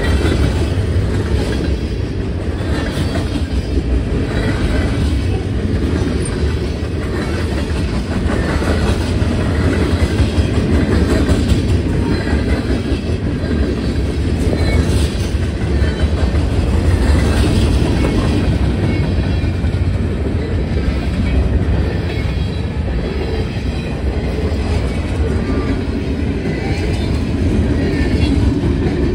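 CSX freight train's cars rolling past close by: a steady rumble of steel wheels on the rails with repeated clickety-clack over the rail joints.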